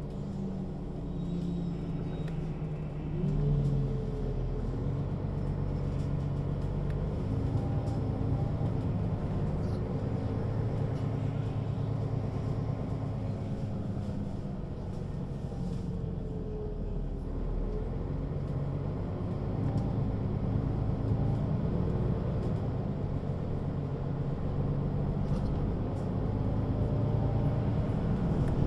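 Mercedes-Benz Citaro G (O 530 G) articulated bus heard from on board, its diesel engine and ZF automatic gearbox under way. The engine note climbs about three seconds in, then runs on steadily with the pitch drifting up and down.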